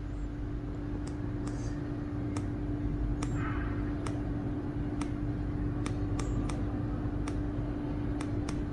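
Light, sharp clicks about once a second from the arrow key of a Karl Deutsch Echograph ultrasonic flaw detector's keypad being pressed step by step to shift the delay. A steady low hum runs underneath.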